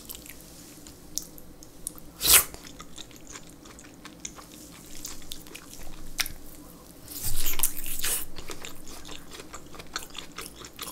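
Close-miked eating sounds: a raw oyster is taken in the mouth with a sharp wet smack about two seconds in. Then come wet bites and chewing into a thick chunk of whole boiled pork belly, loudest around seven to eight seconds in.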